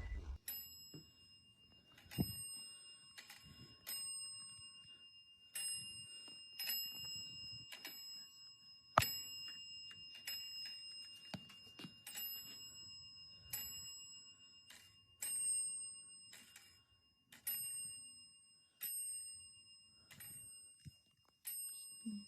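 Bell of a dismantled rotary telephone giving single faint dings at uneven intervals, roughly one a second, each strike ringing on at the same few pitches.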